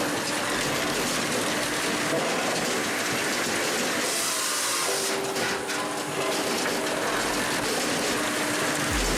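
Firewood processor working: a dense, steady mechanical rattle and rush with a few brief knocks, as logs are cut and split and the pieces tumble through the hopper and along the conveyor.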